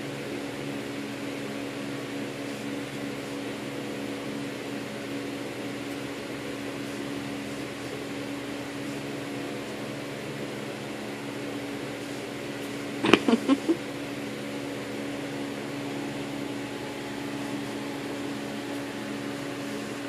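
Steady mechanical room hum, like a running fan, with a few even tones. About two-thirds of the way in, a short, loud run of four quick pitched sounds.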